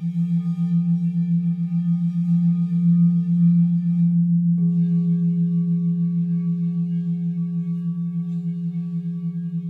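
Several crystal singing bowls sounding under wooden mallets: a deep sustained tone with a steady pulsing beat and ringing overtones. About halfway through, a higher bowl tone comes in and the overtones shift.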